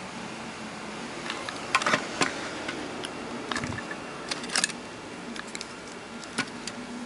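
Scattered light clicks and small knocks of plastic being handled: the frequency inverter's grey plastic housing and keypad being moved and fitted by hand, with the busiest clicks about two seconds in and again around four and a half seconds.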